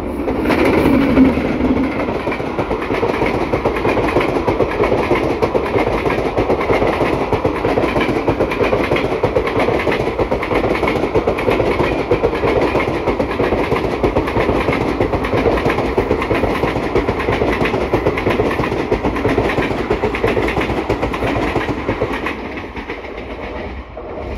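Express passenger train hauled by a WAP-7 electric locomotive passing close at speed. The locomotive goes by about a second in, then a long rake of sleeper coaches rushes past with steady wheel-on-rail noise, fading near the end as the last coach goes by.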